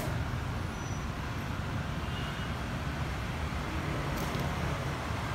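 Steady low rumble with a faint hiss, a sharp click at the start and a brief tick about four seconds in.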